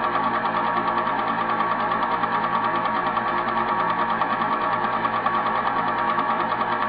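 Film projector running with a steady, fast mechanical clatter and an even hum.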